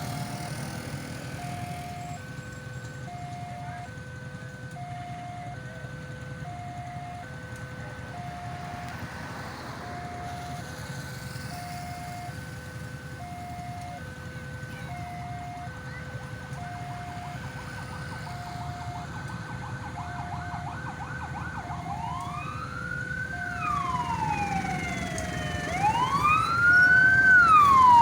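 Ambulance siren wailing, rising and falling in long sweeps. It starts about three quarters of the way in and grows louder near the end. Under it there is a repeating electronic two-tone beeping and a low steady rumble.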